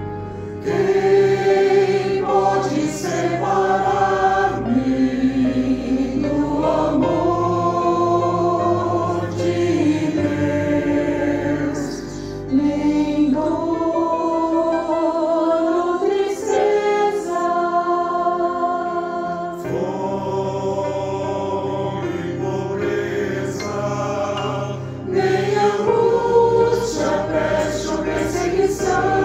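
Mixed church choir singing a sacred anthem, with pipe-organ-style accompaniment holding steady low bass notes under the voices. The choir comes in strongly just under a second in and sings in long sustained phrases.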